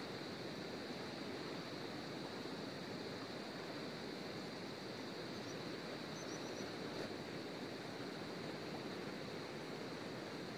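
Steady rushing of a wide river flowing over a rocky bed, an even wash of water noise.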